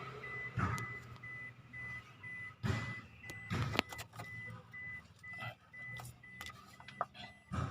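Sharp knocks and clinks of hand tools at work while a crankshaft position sensor is fitted under an engine. Underneath are a steady low hum and a faint high beep repeating evenly.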